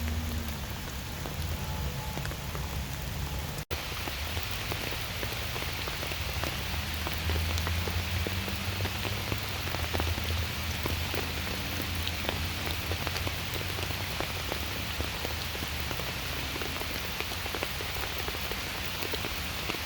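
Steady rain falling, with many separate drops tapping close by over a low, steady rumble.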